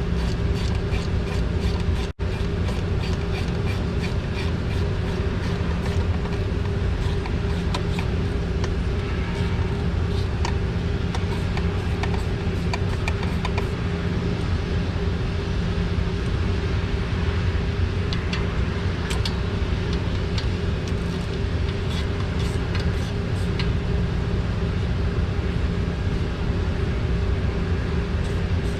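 A steady mechanical hum of a running engine or motor, with a few light ticks of hand tools partway through.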